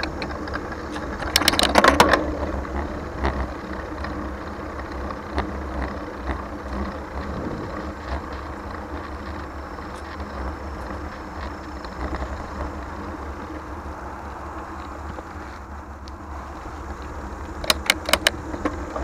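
A 2020 Trek Dual Sport 4 hybrid bicycle being ridden: a steady low rumble of wind and tyres, with two short bursts of rattling clicks, one about a second and a half in and another near the end.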